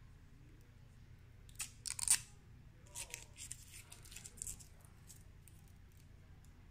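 Hands handling a small plastic USB wall charger: a quick cluster of sharp plastic clicks and rustles about two seconds in, then lighter clicks and taps over the next couple of seconds.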